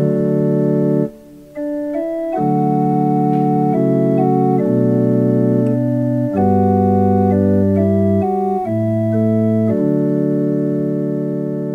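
Keyboard with an organ-like sustained tone playing held chords in D major, the instrumental close of the psalm refrain accompaniment. The notes hold steady without fading, the chords change about every second after a short break about a second in, and a final chord is held near the end.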